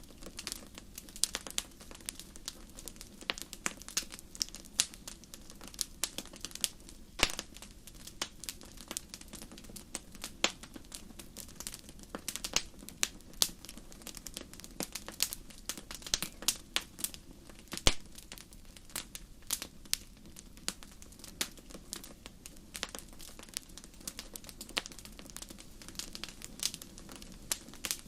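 Wood fire burning in a fireplace, crackling with irregular sharp pops and snaps of varying loudness over a low steady rumble of the flames.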